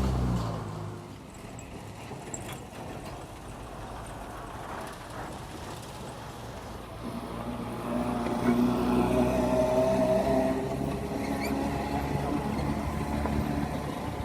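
Road traffic: a motor vehicle's engine hum dies away in the first second. From about eight seconds another engine grows louder and runs on steadily.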